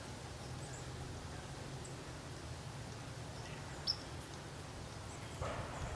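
Quiet outdoor ambience: a low steady hum with a few faint, short bird chirps, one a little louder about four seconds in.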